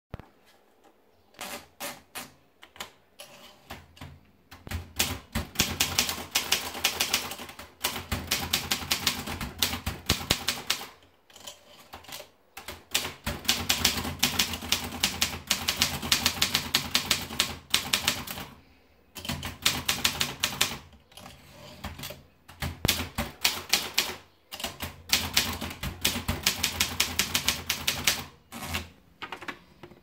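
Optima Elite manual portable typewriter being typed on: rapid runs of sharp keystrokes as the typebars strike the platen, in several bursts with short pauses between them. A few softer clicks come first as the paper is rolled in.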